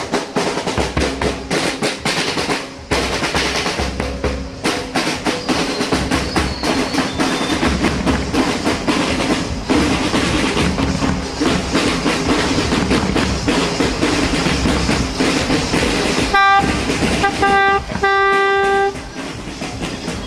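Fast, continuous drumming with rolls and a pulsing deep bass drum beat. Near the end a horn honks several times, a short blast, then quick toots, then one held for about a second.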